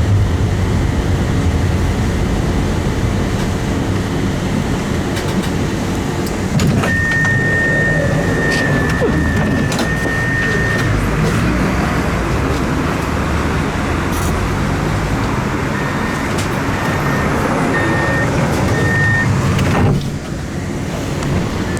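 Tram running on its rails, a steady rumble. A single high tone holds for about four seconds partway through, a few short high beeps follow later, and the rumble drops off suddenly near the end.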